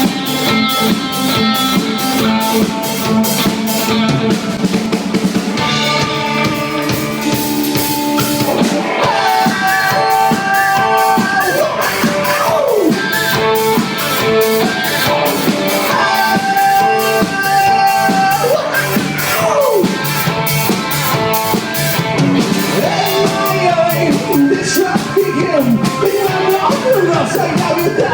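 Live rock band playing: a drum kit keeps a steady beat under electric guitar, with a voice sliding up and down in pitch in places.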